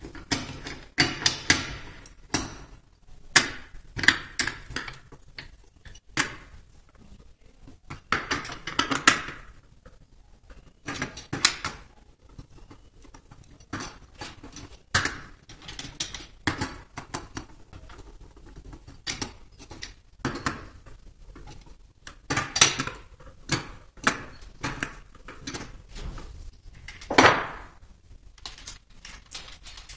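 Metal hand tools and steel bolts clinking on a Hondamatic transmission case as the cover bolts are loosened with an L-shaped socket wrench and lifted out by hand: irregular sharp clinks and ticks, with a few longer scrapes, the loudest near the end.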